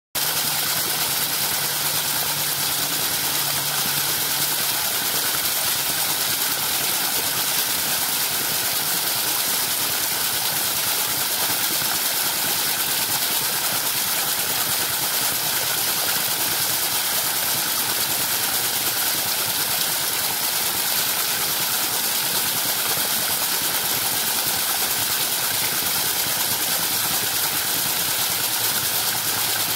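Steady rushing and splashing of a water jet from a pipe striking the spinning cups of a bicycle-wheel Pelton-style water wheel and pouring onto rocks, with a faint steady hum beneath.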